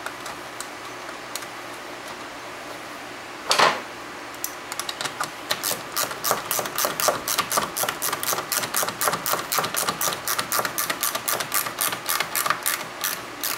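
Ratchet wrench clicking rapidly, about five clicks a second, as it runs in a screw holding the fan shroud; a single loud clank comes a few seconds before the clicking starts.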